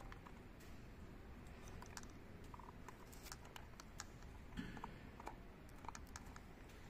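Faint, scattered light clicks and taps of fuel-pump assembly parts being handled and fitted by hand.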